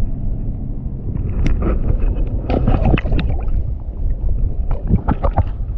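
Wind buffeting the microphone as a heavy, uneven rumble, with scattered short knocks and clicks in the middle of the stretch.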